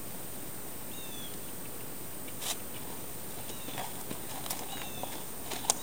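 A horse's hooves knocking a few times on frozen-solid arena ground as it shifts its feet, with the sharpest knock near the end. A small bird chirps faintly in the background, several short falling notes.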